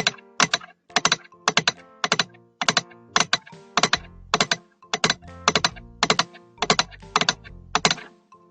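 Computer keyboard typing sound effect: quick clusters of two or three key clicks about twice a second, over soft background music.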